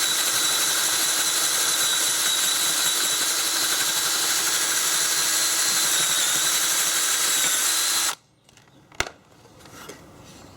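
Power drill with a 1 1/4-inch bit running steadily as it bores the hole through from the back of a wooden board, for a smooth hole. It stops suddenly about eight seconds in, and a single knock follows about a second later.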